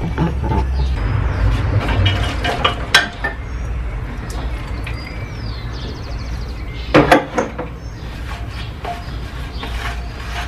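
Metal tools and engine parts clinking and knocking as they are handled, with a sharp knock about three seconds in and a louder cluster of clanks about seven seconds in, over a steady low rumble.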